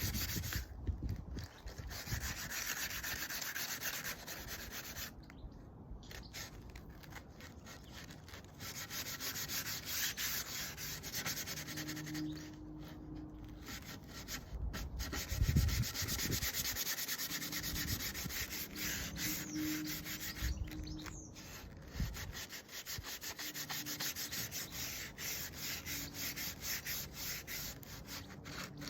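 Sandpaper rubbed by hand over wood in quick, even back-and-forth strokes, a scratchy hiss with a few short pauses.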